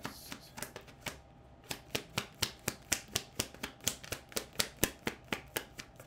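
A deck of tarot cards being overhand-shuffled by hand: a quick run of light card taps and snaps, about five a second.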